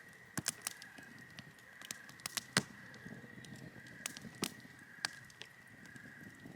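Campfire crackling, with irregular sharp pops of varying strength and a faint steady high-pitched tone underneath.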